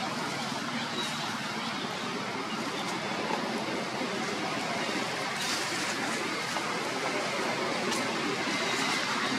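Steady outdoor background hiss with a few faint, scattered clicks.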